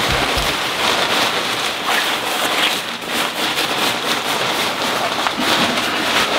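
Terra Hiker rain poncho's waterproof fabric rustling steadily and loudly as it is rolled and squeezed up by hand.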